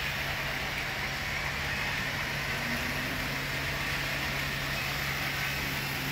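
Steady running noise of a garden-scale model train on its layout, a continuous whir with a constant low hum underneath.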